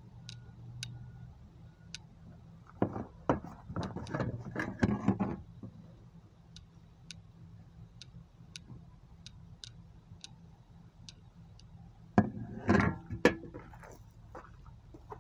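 Hard plastic car interior trim pieces handled: clattering knocks for a couple of seconds about three seconds in and again near the end. Between them, faint sharp high ticks at uneven intervals of about half a second to a second.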